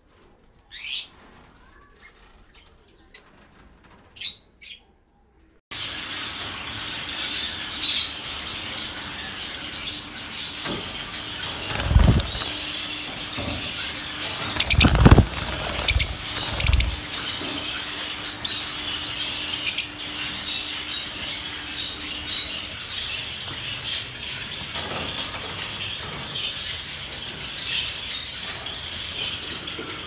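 Caged lovebirds chirping: a few scattered chirps at first, then, after about six seconds, a dense continuous chatter of many birds, with a few loud thumps near the middle.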